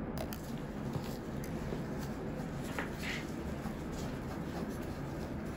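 Steady low room hum with a few faint clicks and soft rustles: suture scissors snipping at a tied stitch, then gauze dabbing the closed incision.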